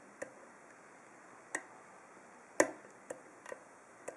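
Small, sharp metallic clicks of a hook pick working the pins of a Best seven-pin interchangeable padlock core, as pins are lifted and set under light tension. There are about six clicks at uneven intervals, the loudest about two and a half seconds in.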